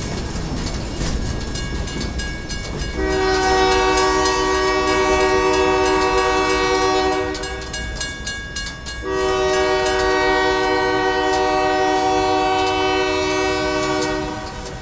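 Freight train rolling noise for the first few seconds as the last boxcar clears the crossing, then the GP39-2 locomotive's air horn sounding two long blasts, the first starting about three seconds in and the second about nine seconds in.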